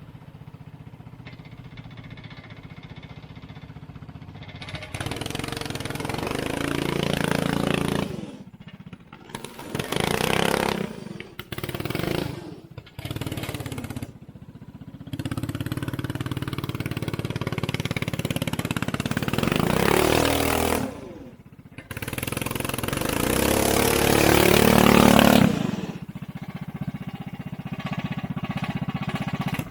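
Small 212cc single-cylinder go-kart engine running: a low steady idle for the first few seconds, then revving up and dropping back several times with short breaks in between.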